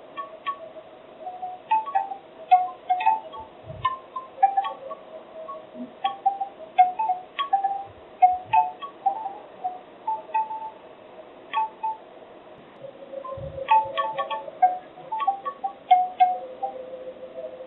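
Bamboo wind chimes knocking together in the wind, their hollow wooden tones clattering at an irregular pace, with a brief lull about two thirds of the way through.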